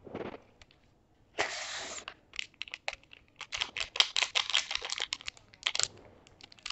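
Thin plastic seasoning sachet crinkling as it is squeezed and shaken out over a bowl: a short rush of powder pouring, then a run of quick crackles.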